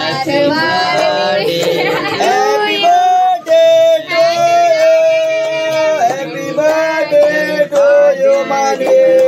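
A voice singing a birthday song: one melody with long held notes.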